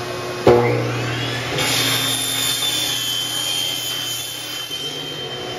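King Canada 14-inch cut-off saw with a carbide-tipped Evolution blade starting with a sudden thump about half a second in, its motor spinning up with a rising whine. About a second later the blade bites into T-slot aluminum extrusion and cuts with a loud, high-pitched ringing that stops near the end.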